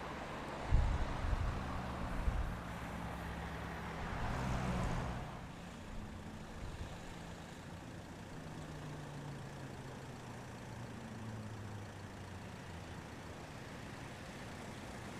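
Road traffic: a motor vehicle's engine running with low rumbling bursts in the first few seconds, and a vehicle passing about four to five seconds in, followed by a quieter steady hum of traffic.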